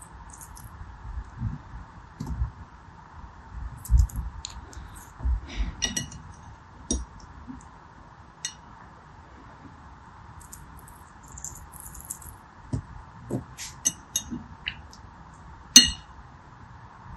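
Irregular crisp clicks and taps as a serrated knife cuts small gel beads and the beads clink against a ridged glass dish, over a faint steady hiss. The sharpest click comes near the end.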